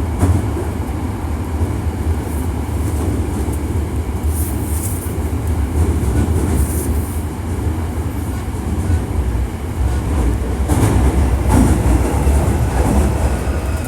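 Hankyu 1300 series electric train running in a subway tunnel, heard from inside the car: a steady low rumble of wheels and running gear with rail clatter, and a louder stretch of rattle and high hiss near the end.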